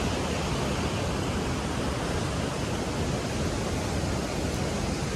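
Steady, unbroken rush of a waterfall's falling water, even in level throughout.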